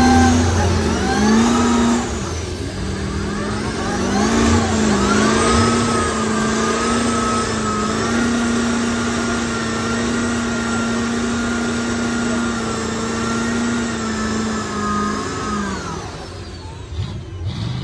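Lifted pickup truck's diesel engine revving up, dipping, then held at high, steady revs through a burnout. The revs drop away near the end.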